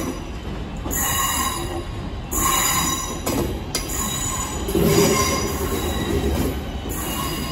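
West Midlands Railway electric multiple unit running slowly into the platform, its wheels squealing high and metallic in bursts about once a second on the curved track. A low rumble from the passing carriages grows from about halfway through.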